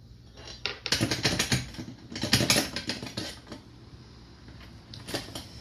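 Small hard parts clicking and knocking as a pro scooter's rear wheel, spacers and axle are fitted into the deck's rear dropouts. A quick, dense run of clicks fills the first few seconds, then a few more come near the end.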